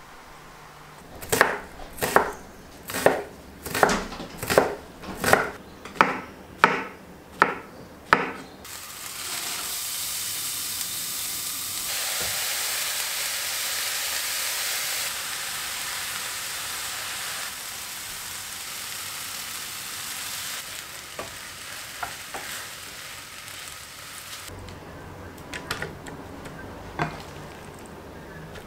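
About ten sharp, evenly spaced knocks, roughly one a second. Then diced vegetables and meat for a quesadilla filling start sizzling loudly in a hot frying pan; the sizzle eases off gradually and stops near the end. A few light clicks follow.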